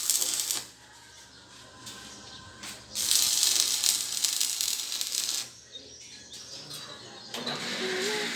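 Stick welding arc crackling and hissing in two bursts: a short one at the start and a longer one of about two and a half seconds from three seconds in. A wavering hum comes in near the end.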